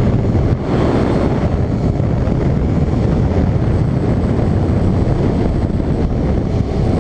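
Motorcycle running at road speed, its engine mixed with a heavy, steady wind rumble on the microphone.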